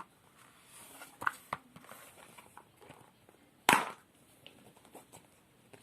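Light clicks and taps of colour pens being handled, with one sharper click nearly four seconds in.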